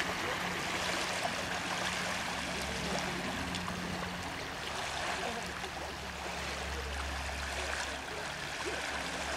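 Steady rushing noise of lake water lapping at the shore, with a faint low hum underneath.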